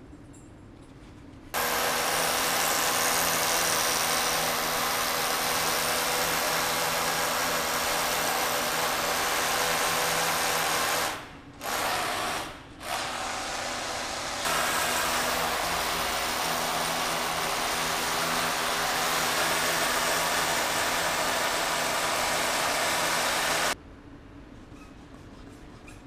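Rotary hammer drill boring an anchor hole into a building wall. It starts about a second and a half in, runs steadily with a constant motor hum, cuts out twice briefly around the middle, and stops a couple of seconds before the end.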